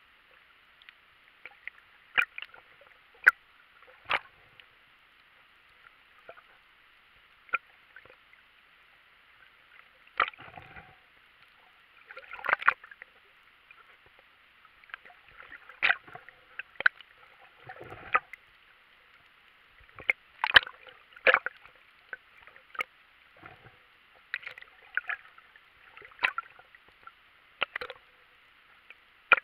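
Underwater sound while swimming: a steady hiss of moving water with irregular sharp clicks and knocks every second or two, and a few brief low rumbles of water rushing.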